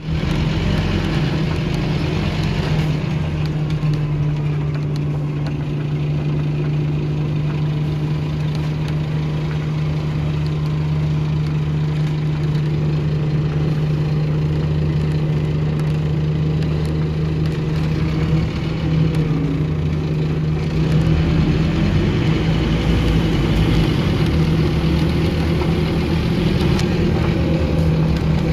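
Scania OmniCity bus engine idling steadily, heard from inside the bus. About two-thirds of the way through it grows louder and busier as the bus pulls away.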